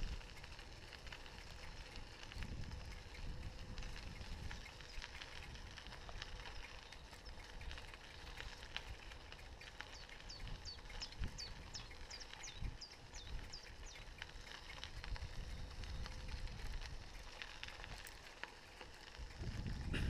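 Bicycle rolling along a gravel path, its tyres making a steady rumble with wind noise on the mounted camera's microphone. About ten seconds in, a bird sings a quick run of about a dozen short, high, falling notes, lasting about three seconds.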